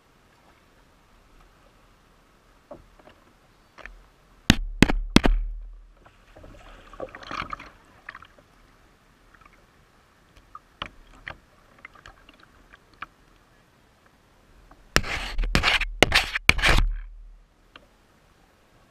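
A paddle knocking and scraping against a plastic kayak hull, with some water swishing. There are two clusters of sharp knocks, one about four and a half seconds in and a longer one around fifteen to seventeen seconds in.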